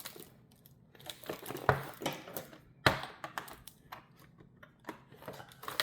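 Small plastic packaging being worked at by hand: irregular clicks, taps and crinkles, with a sharper click a little under two seconds in and another near three seconds.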